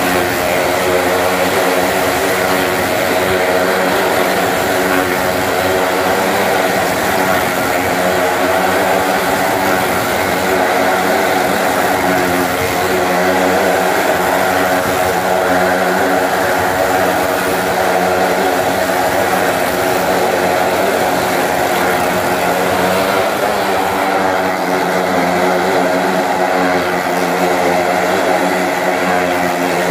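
Motorcycle engine running steadily at an even pitch as the bike rides round the wooden wall of a well-of-death drum.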